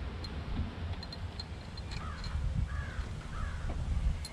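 A crow cawing three times in quick succession about two seconds in, over a steady low rumble of wind on the microphone.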